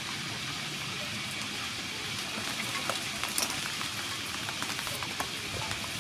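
Small clicks and scrapes as a cucumber is trimmed and peeled with a hand peeler. They come in two clusters, around the middle and near the end, over a steady hiss.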